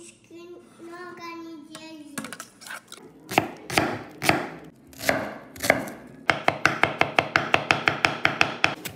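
A Samura chef's knife chopping on a wooden cutting board. It starts with slower, uneven cuts through red onion, then goes into rapid, even chopping of pickles at about seven strokes a second over the last few seconds. A child's voice sounds briefly at the start.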